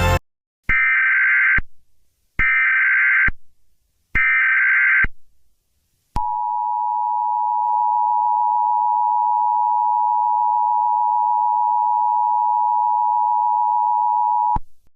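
Emergency Alert System tones. Three short bursts of SAME header data, each just under a second, are followed by the two-tone attention signal, a steady dual tone held for about eight seconds that cuts off near the end. Together they announce the emergency alert that follows.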